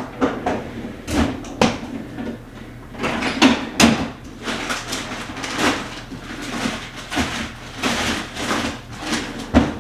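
Refrigerator being loaded: containers knocking and clattering against the shelves, rustling in between, and the fridge door shut.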